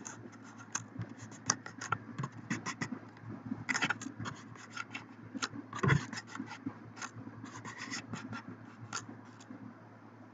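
Typing on a computer keyboard: quick, irregular keystrokes, several a second, stopping near the end, over a faint steady hum.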